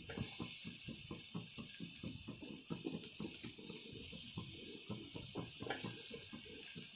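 Onions, curry leaves and ginger-garlic paste frying in oil in a stainless steel kadai, freshly topped with chopped tomatoes: a soft sizzle with an irregular run of small crackles and pops, several a second.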